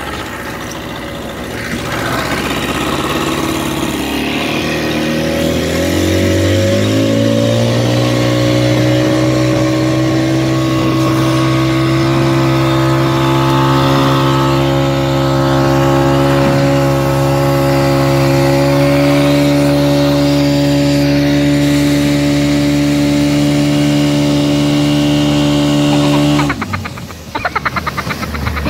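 Engine of a motorized watercraft towing a banana boat: it speeds up over a few seconds, then runs at a steady high speed. Near the end it cuts off abruptly and a choppier, uneven noise takes over.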